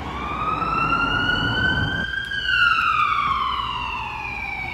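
Emergency vehicle siren in a slow wail: its pitch rises for about two seconds, then falls, and it starts rising again at the end. A low rumble runs under it and stops about two seconds in.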